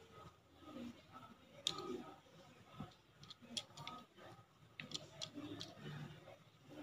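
Quiet room tone with a few faint, scattered clicks.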